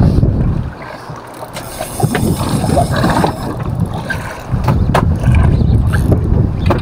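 Wind buffeting the microphone aboard a boat at sea: an uneven low rumble that eases for about a second near the start, with a few faint knocks and a sharp click about five seconds in.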